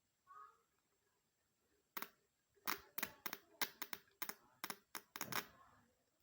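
About a dozen sharp, irregularly spaced clicks over a few seconds, typical of a distributor's igniter switching as the shaft is turned by hand on the bench while the faulty ignition coil gives no spark.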